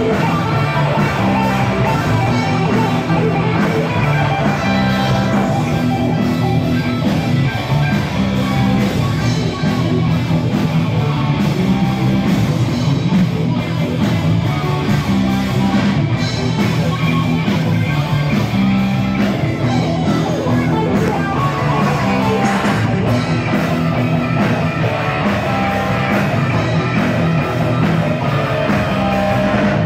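Rock music: a band playing with electric guitar.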